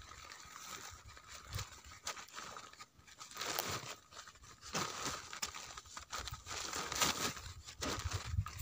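Woven plastic sack crinkling and rustling as it is handled and closed, in irregular bursts with short crunches.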